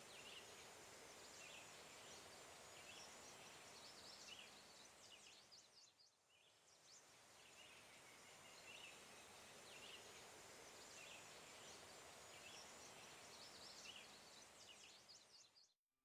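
Faint outdoor ambience: a steady hiss of background noise with scattered small bird chirps. It dips briefly about six seconds in and cuts off suddenly at the very end.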